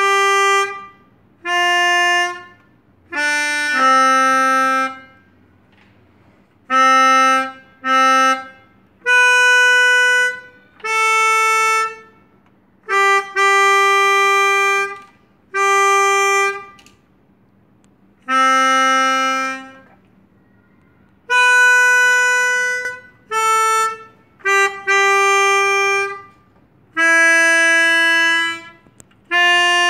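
Melodica (pianika) played solo: a slow single-note melody of held notes in short phrases, with brief pauses between them.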